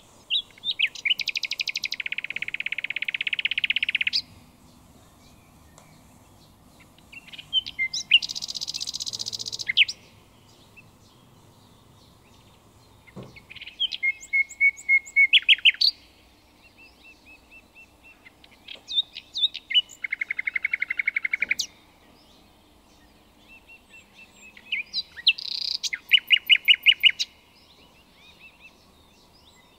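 Songbird singing: phrases of rapid trills and chirps, each a few seconds long, with short pauses between them.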